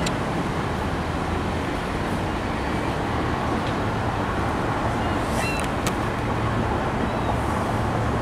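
Union Pacific freight train's cars rolling past close by: a steady rumble of steel wheels on the rails, with a few sharp clicks and brief squeaks about five and a half seconds in.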